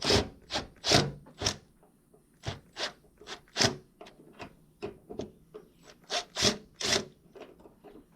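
Irregular series of short scrapes and knocks, roughly two or three a second, as the cracked front bumper reinforcement brackets are handled and picked at.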